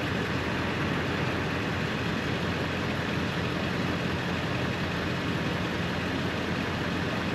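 Toyota Tundra pickup's engine idling steadily, with a constant hum and even rushing noise.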